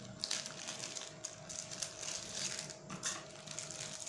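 Thin clear plastic sleeve crinkling and rustling in irregular bursts as hands pull a smartphone telescope lens out of it.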